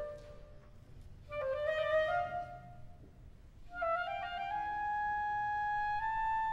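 Intro theme music: a wind-instrument melody in three short phrases, the last settling into a long held note that steps up once near the end.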